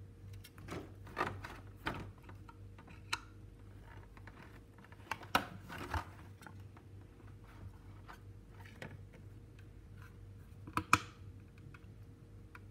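Small clicks and knocks of a hollow plastic model-plane display stand being handled and set down on a wooden table, with a few sharper knocks about a second in, around five to six seconds, and near eleven seconds.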